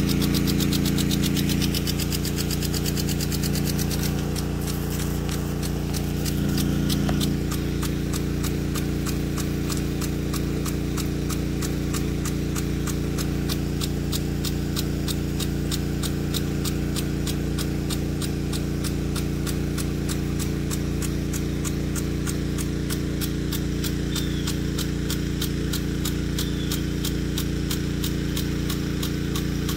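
Weathertec 10-67 big-gun impact sprinkler running, its drive arm ticking rapidly and evenly, several times a second, against the water jet. Under it is the steady hum of the pump feeding it.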